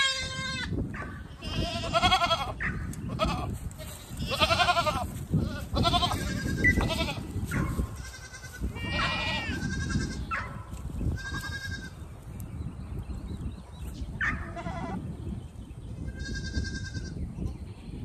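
Goat kids bleating again and again: a dozen or so high calls of differing pitch, some with a quavering tremble.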